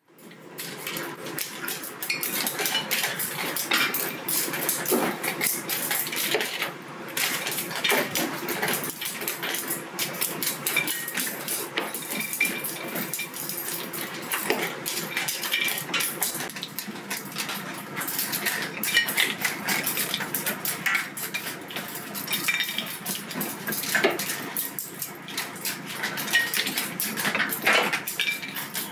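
Rice crackers being grilled and pressed on a metal wire grill: a steady run of clicks, taps and clatter as they are pressed flat and turned.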